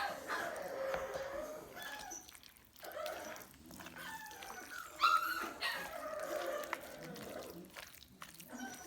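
Dogs whining and yipping in high, gliding calls, on and off, loudest near the start and again about five seconds in.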